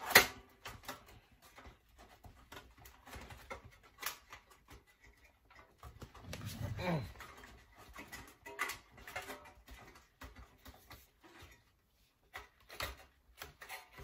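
Handling noise from a disassembled toaster oven's sheet-metal body and plastic control panel: a sharp click about a fifth of a second in, then scattered light clicks and knocks as the parts are moved.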